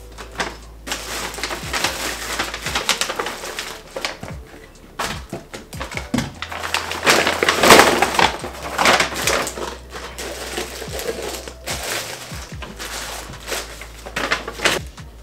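Brown paper bags rustling and crinkling as things are handled and packed into them, in irregular bursts with small knocks of objects, loudest about halfway through.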